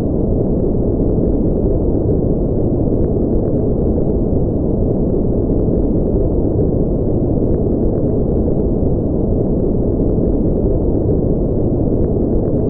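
Continuous synthetic noise track, sold as white noise but deep and muffled, with its energy low down and no high hiss. It holds an even, unchanging level.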